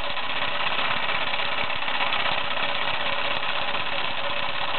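Meccano MEC1 toy steam engine running fast and steady under test steam, with a rapid, even exhaust beat over a hiss of steam.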